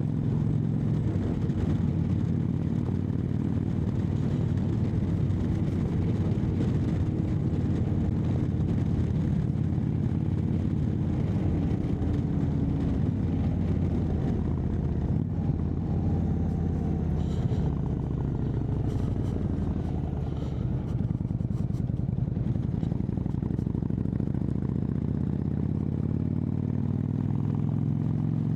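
Indian Chieftain Dark Horse V-twin running at steady highway cruising speed through a Freedom Performance exhaust, with its failed exhaust gasket freshly replaced and no leak. The engine note eases off a little partway through and picks up again.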